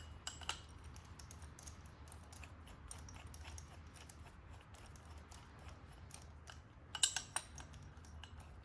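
Light metal clicks and clinks of hand tools on the pulley of a car air-conditioning compressor's magnetic clutch during disassembly, with a quick cluster of sharper clinks about seven seconds in.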